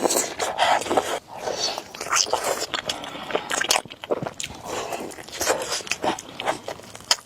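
A person biting into and chewing food close to the microphone, with many short sharp clicks and crunches.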